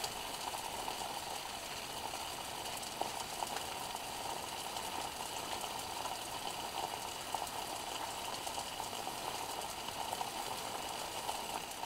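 Steady bubbling hiss of water boiling in a thin aluminium cook pot over a methanol jet stove, the stove burning its last fuel just before run-out.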